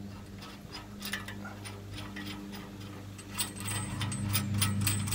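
Steel nut and washer being spun by hand onto a long threaded bolt: light, irregular metallic clicks and ticks, coming faster in the last couple of seconds. A steady low hum runs underneath.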